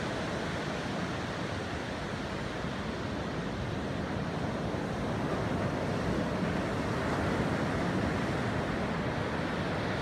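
Ocean surf breaking and washing up a sandy beach: a steady rush that swells a little about five to eight seconds in.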